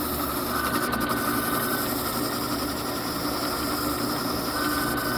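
Ridgid drill press running with a sanding drum in its chuck, a steady hum, while a block of wood is sanded against the drum; a higher whine comes in twice.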